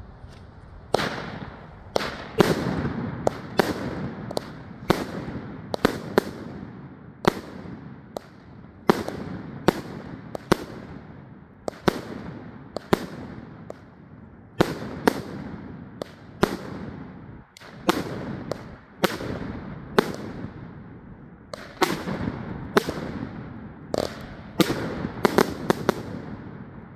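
A Carolina Coast 25-shot, 200-gram consumer firework cake firing its shots one after another. It makes a long run of sharp bangs, roughly one to two a second, each trailing off briefly. The bangs start about a second in and stop near the end.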